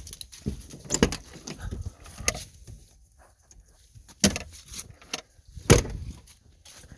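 A pickup truck's door and cab being handled: a few irregular clunks and knocks, the loudest about four seconds in and again near six seconds.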